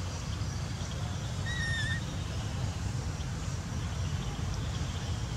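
A single short, high-pitched call about a second and a half in, clear and slightly wavering, from an animal. It sounds over a steady low rumble.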